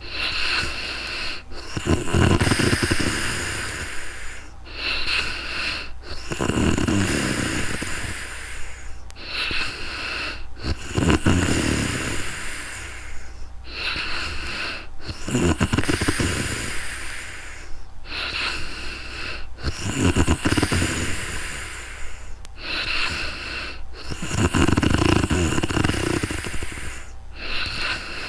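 A sleeping woman snoring steadily. A rattling snore comes with each breath, about every four and a half seconds, six in all, with airy breath noise between them.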